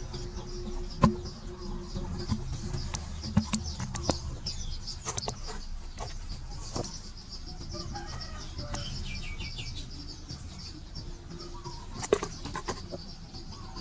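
Outdoor ambience with birds calling over a steady high pulsing background, broken by a few sharp clicks. The loudest clicks come about a second in and near the end.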